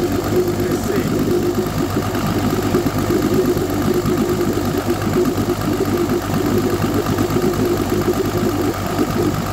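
Evinrude G2 200 HP V6 two-stroke outboard idling steadily with its cowling off, run in a barrel of water and Rydlyme descaler to clear scale from its cooling passages.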